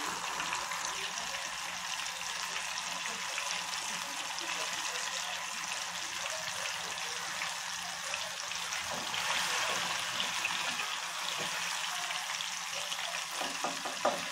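Banana slices deep-frying in very hot oil in an aluminium pot: a steady sizzle and crackle of bubbling oil, a little louder about nine seconds in.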